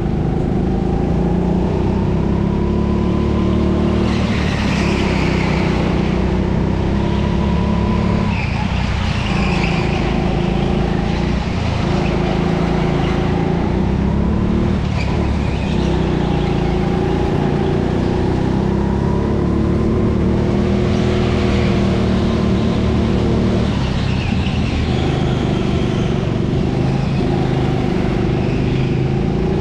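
Indoor racing kart's motor running hard, its pitch rising and falling every few seconds as the kart accelerates and slows through corners, with short bursts of tyre squeal.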